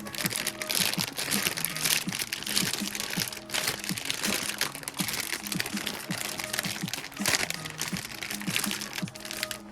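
Plastic packaging bag crinkling and rustling as it is handled, in irregular crackles, over soft background music.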